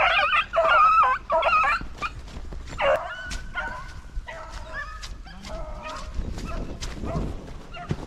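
Beagles yelping and baying in wavering cries, loudest over the first two seconds and again about three seconds in, then fainter cries with scattered clicks.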